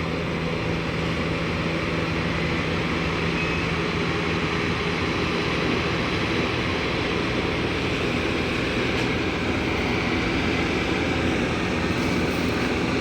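Heavy machinery engine running steadily at a constant pitch.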